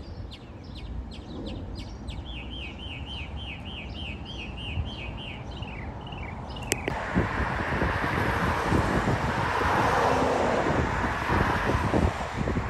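A songbird sings over a faint low rumble: first quick chirps, then a steady run of slurred notes, about four a second. About seven seconds in, a click gives way to the steady rising noise of a jet airliner on approach, an Airbus A330-300 with Rolls-Royce Trent 700 engines, with wind buffeting the microphone.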